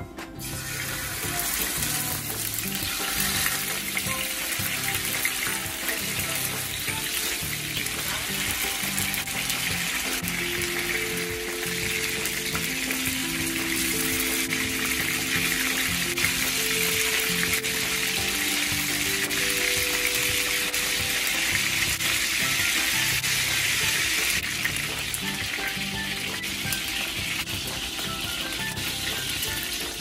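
Chicken pieces sizzling as they shallow-fry in hot oil in a nonstick frying pan, over background music. The sizzle starts about half a second in and eases off after about 24 seconds.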